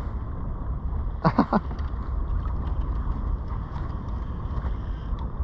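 Wind buffeting the microphone with low rumble and water against a kayak hull, while a fishing reel is wound with faint ticking; a brief vocal grunt about a second in.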